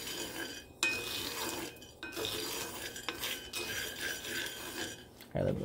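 Coffee beans being roasted in a small cast iron skillet, stirred with a wooden spatula: the beans rattle and scrape across the iron. The stirring is continuous, with two brief pauses about one and two seconds in.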